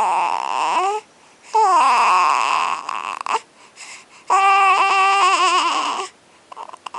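A baby crying out in three long, high-pitched wails with short pauses between. The pitch wavers and slides in the first two, and the last is held fairly steady.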